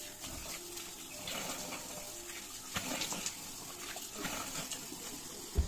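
Bathroom sink tap running, the stream splashing over hands being washed and into the basin. A short thump near the end.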